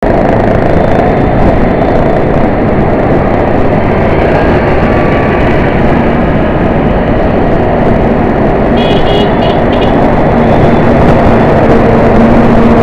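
Dense road traffic: a steady mix of engines and tyre noise, loud throughout. About nine seconds in, a few short high-pitched beeps sound over it.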